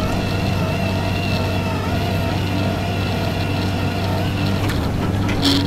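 Heavy diesel engine of a bored-pile drilling rig running steadily at a constant speed, with a faint wavering whine over the low drone. A brief sharp clatter comes near the end.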